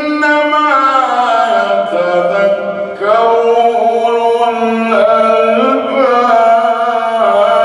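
A man's voice chanting Quranic recitation in the melodic tajwid style, drawing out long, ornamented held notes that glide between pitches, with a short breath about three seconds in.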